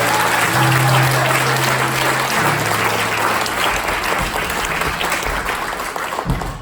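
Audience applauding, thinning out near the end, with a held low note of music under the first couple of seconds.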